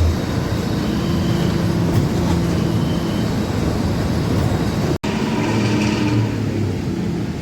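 Diesel engine and racing exhaust of a Harapan Baru intercity bus, heard inside the cabin from the back seat while under way: a steady low drone, the exhaust's 'ngorok' (snoring) note. A momentary dropout about five seconds in.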